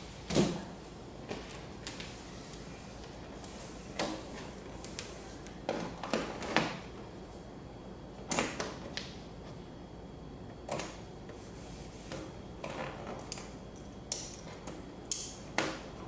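Hand work on the vinyl wrap of a mini fridge: about a dozen short scrapes and taps at irregular intervals, the loudest just after the start.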